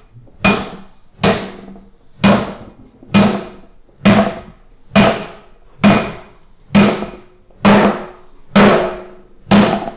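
Cooper's iron maul striking the end hoop of a cask, eleven even blows about a second apart, each leaving a short metallic ring. The blows are driving the end hoop down flush at the end of the cask.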